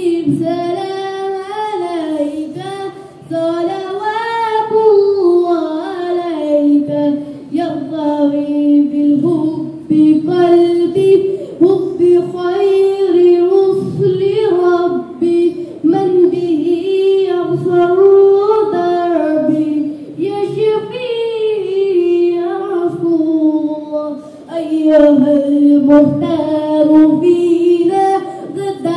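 A boy singing solo and unaccompanied into a handheld microphone: one melodic line of long, held notes that bend up and down in pitch, with only brief breaths between phrases.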